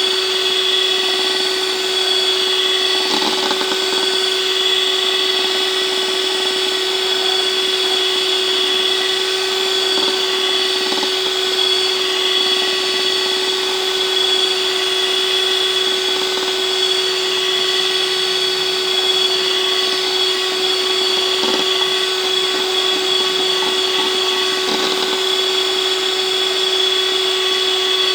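Electric hand mixer motor running steadily at one speed, a constant whine that holds without a break.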